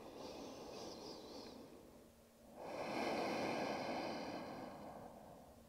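A woman breathing audibly while holding a stretch: a faint breath, then a longer, louder one about two and a half seconds in.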